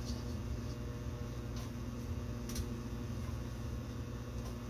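Steady low hum from a kitchen appliance or fan, with a few faint light clicks spread through.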